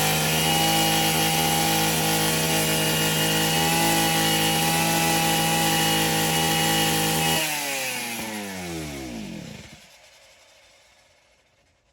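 Small engine running steadily, then shut off about seven seconds in, its pitch falling as it spins down over about two seconds.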